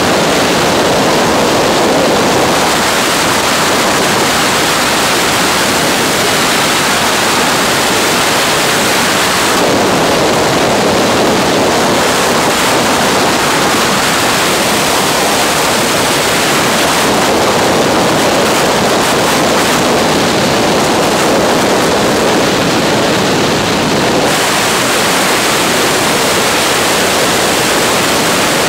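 Loud, steady rush of freefall wind over the skydiving camera's microphone. Its tone shifts every several seconds as the airflow changes.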